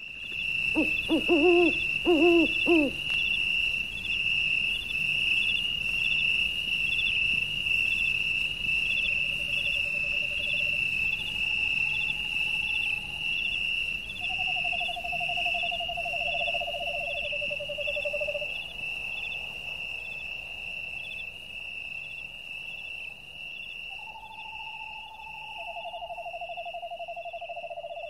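A steady high whistling tone with a regular pulsing above it, joined by a quick warbling burst of lower tones in the first few seconds and then by shorter wavering lower tones that come and go.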